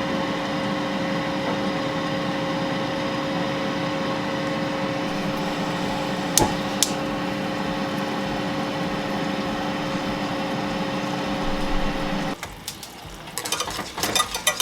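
Steady hum of a kitchen appliance fan, with two sharp clicks about six seconds in. The hum cuts off suddenly near the end, and a utensil clinks and scrapes in a pan of thickening sauce.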